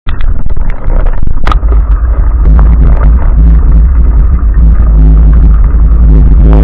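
Loud, overdriven low rumble of an off-road vehicle being ridden over rough ground, with a sharp knock about one and a half seconds in.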